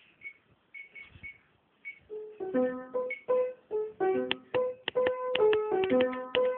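A few short electronic beeps at one high pitch, like phone keypad tones being dialled. About two seconds in, a simple piano-like keyboard melody starts, plucked notes one after another.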